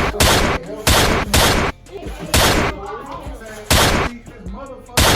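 A series of loud, harsh bursts of noise, each a third to half a second long, coming about six times at irregular intervals, with faint voices between.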